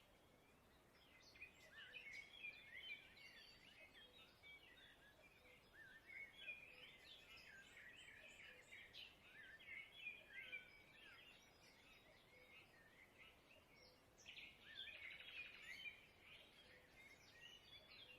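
Faint forest birdsong: many small birds chirping and twittering, with a brief rapid trill near the end.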